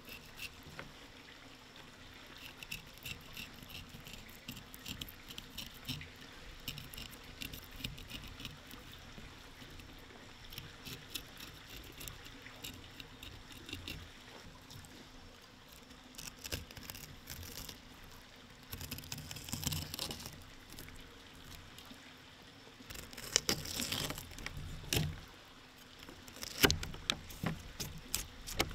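Fillet knife scraping along a barracuda's skin on a rubber-matted cutting board: a steady run of small scratchy ticks and rasps. In the last ten seconds the scraping grows louder, with sharper knocks as the knife works into the fish.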